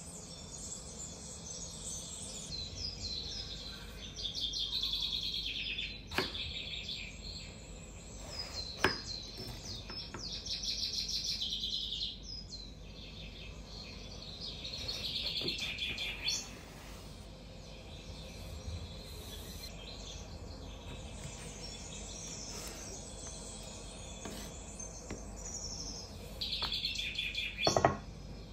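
Birds chirping and singing in short bursts, with a few sharp knocks on a wooden cutting board; the loudest knock comes near the end.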